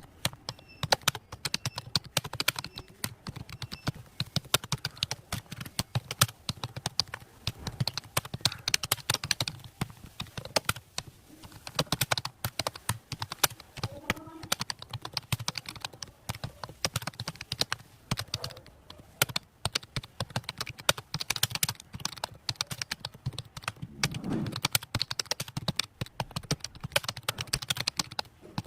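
Fast typing on a computer keyboard: a dense, irregular run of key clicks with short pauses.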